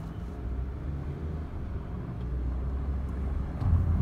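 Low, steady road rumble of a car driving, heard from inside the car. It gets louder a little before the end.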